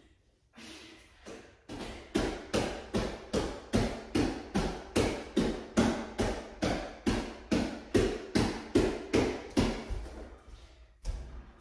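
Quick, even tapping from a bodyweight exercise set, about three strokes a second. It builds over the first two seconds and fades out near the end.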